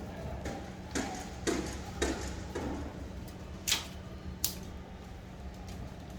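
About six sharp knocks and clicks at irregular intervals over a steady low hum.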